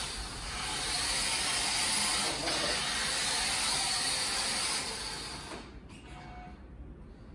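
Brushed electric motor and gears of a 1:10 WPL D12 RC pickup truck running as it drives across a hard floor, as a steady hissing whir that drops away about six seconds in.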